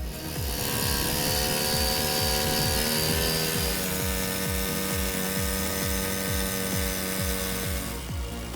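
A machine's motor running steadily, its pitch sagging slightly about a second in, under background music with a steady beat.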